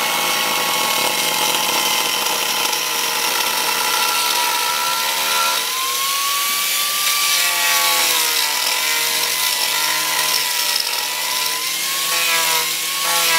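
Angle grinder fitted with an Arbortech TURBOPlane carbide-bladed disc, running and planing the face of a wooden block: a steady motor whine over the hiss of shaving wood. The pitch dips about halfway through and wavers after that.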